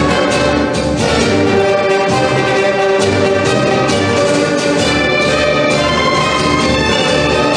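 Orchestral tango music with sustained melody lines and a regular pulse in the bass.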